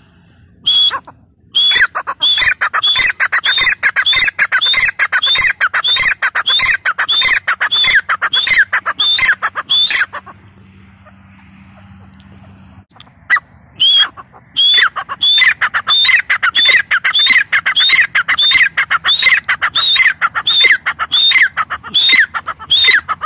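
Grey francolin (teetar) calling loudly: a long series of sharp, ringing notes repeated about twice a second, in two bouts with a pause of a few seconds in the middle.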